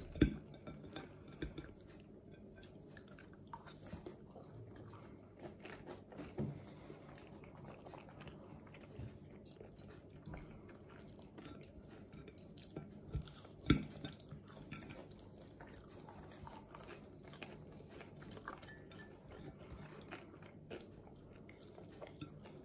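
Quiet chewing with scattered clinks of metal forks against plates; the sharpest clicks come about six and fourteen seconds in.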